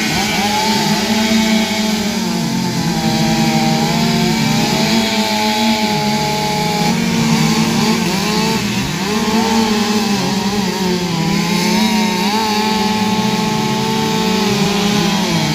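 Several two-stroke chainsaws running at once, their engine pitches repeatedly dropping and climbing back as they rev and bite into wood.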